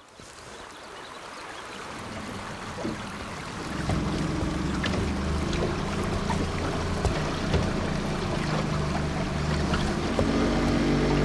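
Boat motor running steadily, with water rushing past the hull. The engine hum comes in about four seconds in and grows fuller near the end.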